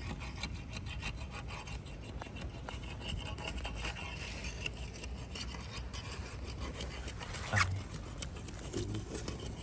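Long metal rod probing in a water-filled mud crab burrow: steady scraping and rubbing against wet mud, with one sharper knock about seven and a half seconds in.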